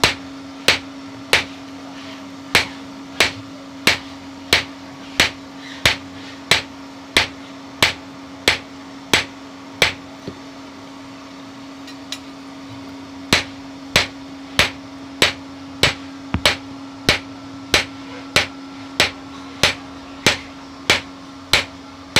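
Hand hammer striking a red-hot leaf-spring steel blade on a small steel anvil block, in sharp, even blows about one and a half a second. The blows pause for about three seconds near the middle, then resume. A steady low hum runs underneath.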